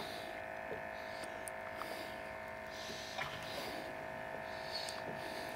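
A steady electric hum with a buzzing edge, holding one pitch, with a few faint clicks.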